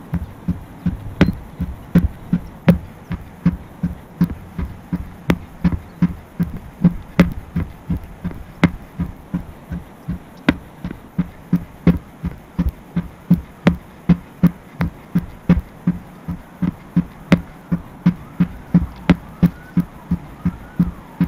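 Hammer blows on a large rubber tractor tire: a steady run of dull thuds, a little under two a second.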